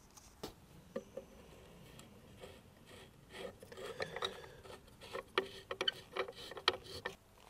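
Teflon-taped plastic fitting being threaded by hand into a Polaris booster pump's volute: faint rubbing and small clicks of plastic on plastic, becoming busier about three and a half seconds in.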